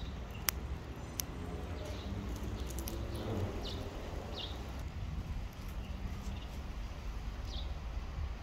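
Wood fire in a metal fire pit, with two sharp crackling pops in the first second or so, over a low steady rumble; a bird chirps a few times, short falling notes.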